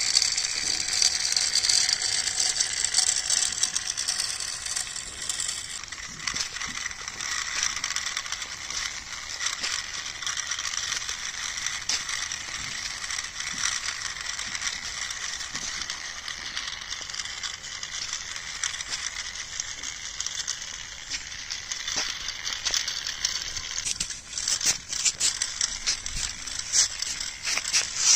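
Small plastic toy tractor and trailer rolling over gritty dirt: a steady rattling and crunching of the wheels on grit, full of fine clicks.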